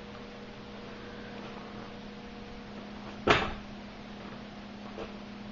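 One sharp click about three seconds in and a fainter one near the end, over a steady low hum, as the start is tried on a 2005 Suzuki LT-Z250 quad. The engine does not turn over, because a battery terminal is not properly connected.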